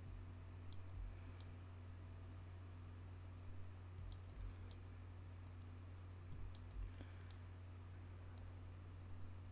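Computer mouse button clicking, about a dozen short, scattered clicks, some in quick pairs, as the clone tool is dabbed along a repair. A steady low hum runs underneath.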